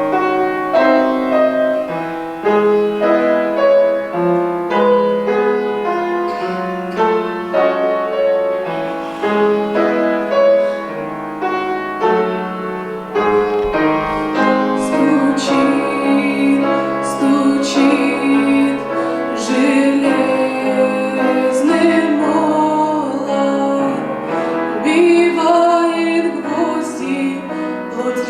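Piano playing alone, then about halfway through a woman's voice begins singing over the piano accompaniment, the held notes wavering with vibrato.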